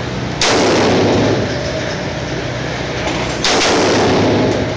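Two shots from a 5.56/.223 AR-15 rifle, about three seconds apart. Each rings on for about a second in the echo of an indoor shooting range.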